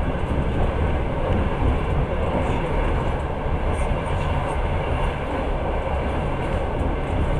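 Passenger train running, heard from inside the carriage: a steady low rumble of wheels on the rails and the moving car.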